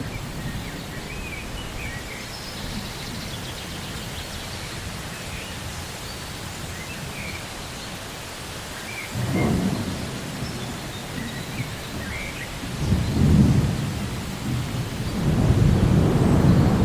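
Steady rain falling, with low thunder rumbling in about nine seconds in, again a few seconds later, and swelling into a longer roll near the end.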